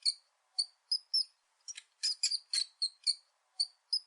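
High-pitched chirping sound effect: short chirps in quick clusters, a looped pattern that repeats about every three seconds.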